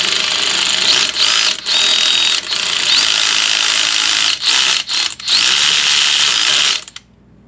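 A ratchet spinning out the thermostat housing bolts on the underside of a Subaru EJ22 engine. It runs in several spells with short breaks and stops a little before the end.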